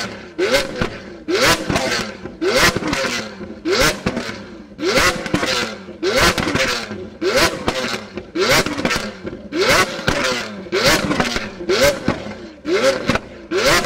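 Lamborghini Aventador S's V12 through a straight-piped Capristo exhaust, revved in short, rising blips about once a second while standing still. Each blip is followed by a burst of loud cracks and pops from the exhaust on the overrun.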